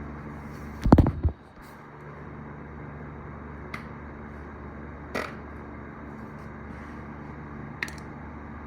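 A person letting out gas: one short, low sound about a second in, in two quick parts, over a steady low hum. A few faint clicks follow.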